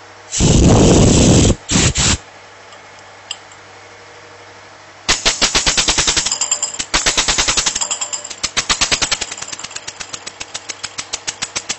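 Small compressed-air piston engine with two flywheels: a loud rush of air lasting about a second, two short puffs, then from about five seconds in the engine running, its exhaust chuffing in rapid, even puffs, several a second.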